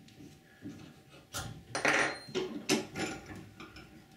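Steel leader wire being wrapped around a nail set clamped in a bench vise: a run of short metallic clinks and scrapes starting about a second in, loudest around two seconds in.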